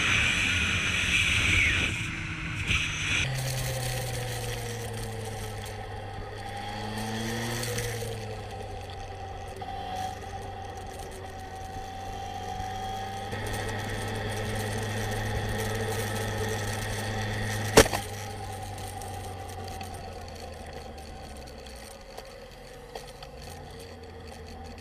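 Sport motorcycle's engine running steadily at road speed, its pitch sliding up and down for a few seconds early in the ride. A loud rushing noise fills the first three seconds, and a single sharp click comes about three-quarters of the way through.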